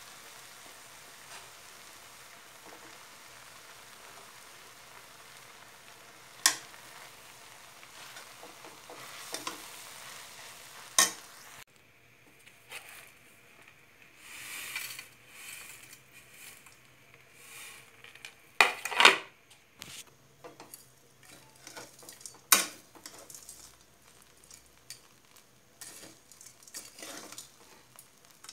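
Food sizzling as it fries in a pan, with a utensil clicking against the pan now and then. About twelve seconds in the sizzling cuts off, and stirring, scraping and sharp knocks of a utensil on the pan follow, the loudest a pair of knocks a few seconds later.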